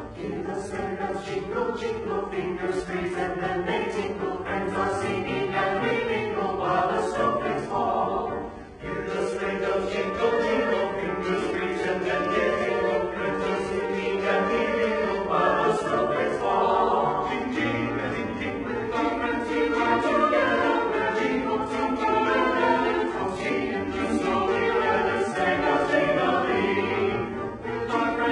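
A choir singing, pausing briefly about eight and a half seconds in.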